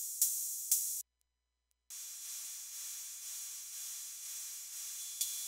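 Breadboarded BOSS DR-110 analog cymbal circuit making synthesized cymbal hits about twice a second, each a sharp high hiss that decays. About a second in, the sound cuts out for nearly a second while its VCA input signals are swapped. It then returns as a steady high hiss that swells softly about twice a second without the crisp attack, and the sharp hits come back near the end.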